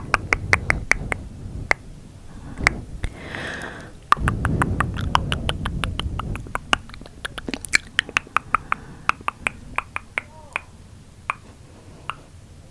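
Close-miked tongue and mouth clicks in quick runs of several a second. About three seconds in there is a short breathy hiss, and a low rumble runs from about four to six and a half seconds.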